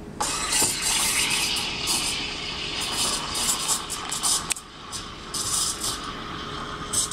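Espresso machine steam wand opened just after the start, hissing unevenly as it froths milk in a stainless steel pitcher, with a couple of brief dips in the hiss.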